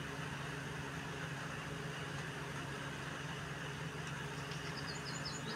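Steady low mechanical hum, like an idling engine or motor. A few short, high chirps come in near the end.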